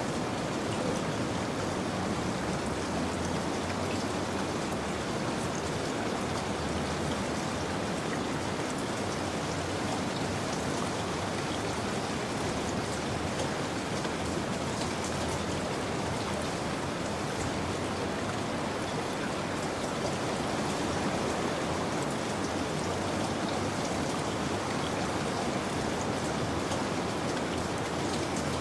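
Steady rain falling, an even rushing hiss with fine patter of drops, unchanging throughout.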